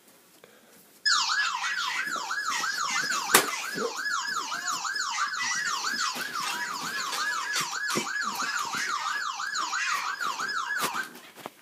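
A siren ringtone played on a phone: an electronic yelp siren sweeping quickly up and down, about three times a second. It starts about a second in and stops near the end, with a sharp click about three seconds in.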